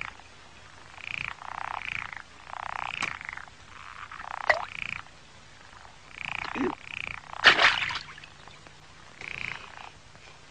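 Frogs croaking, one short call about every second, the night-pond sound effect of an animated cartoon. Sharp clicks come about three and four and a half seconds in, and a short, louder burst of noise about seven and a half seconds in.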